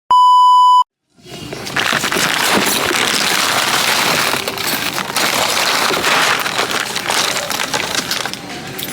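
A short, loud electronic beep, one steady tone lasting just under a second, then a moment of silence. After that a loud, steady rushing noise with fine crackling sets in and carries on.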